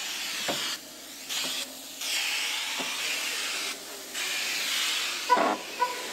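Compressed-air spray gun hissing as it mists disinfectant into a car's interior, cutting out and restarting several times as the trigger is released and squeezed. Near the end comes a loud short tone, then short beeps.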